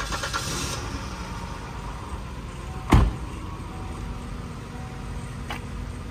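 A minivan door slams shut about three seconds in, the loudest sound, over a low steady rumble of the engine idling after being started on a newly fitted battery.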